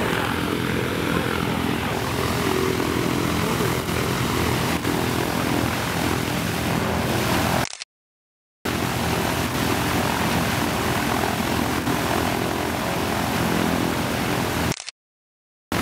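Ilyushin Il-14T's Shvetsov ASh-82T fourteen-cylinder radial piston engine running at a steady speed, propeller turning. The sound cuts out twice for about a second.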